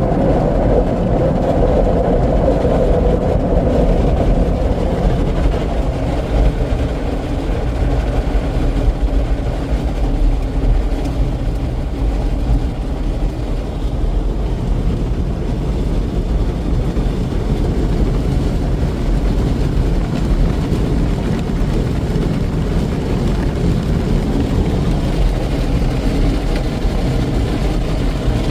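Broadway in-bay automatic car polisher running, a steady low rumble throughout.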